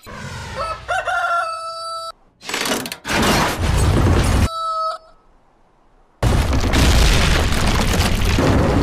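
Cartoon sound effects: a rooster crowing, its call rising and then held, followed by loud rough noise heavy in the bass. A short second crow comes between two stretches of that noise, the second starting about six seconds in.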